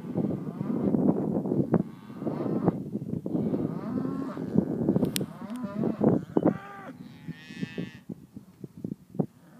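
Herd of beef cattle mooing and bawling, several animals calling over one another in long, bending calls. About seven seconds in, a higher, wavering call stands out.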